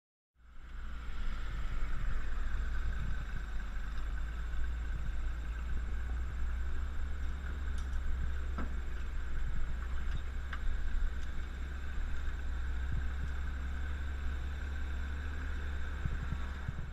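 Vintage Dodge Power Wagon truck driving on a trail: a steady low engine drone, with a few light clicks and rattles about halfway through.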